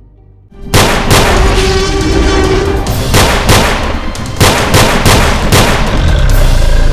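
Film action sound effects: a sudden loud onset about half a second in, then heavy blasts or impacts about twice a second, mixed with music.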